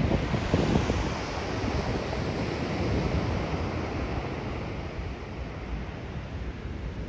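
Wind buffeting the microphone over the hiss and wash of ocean surf. The low gusts are strongest at the start and ease after about a second, and the whole sound slowly dies down.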